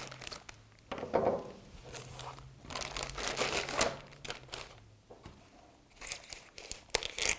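Thin clear plastic bag crinkling in irregular bursts as it is cut open with scissors and pulled off a small part and its coiled cable.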